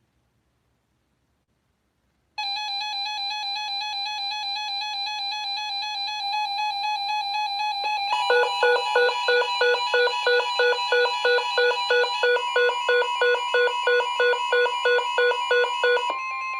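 NOAA Weather Radio alert tones sounding ahead of a severe thunderstorm warning. A steady electronic tone starts about two seconds in. About halfway through, a fast beeping alarm of two to three beeps a second joins it, and a second steady tone comes in during the last few seconds.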